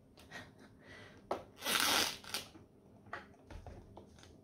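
Plastic packaging rustling and a small plastic appliance being handled: scattered crinkles and light knocks, with one longer, louder rustle about two seconds in.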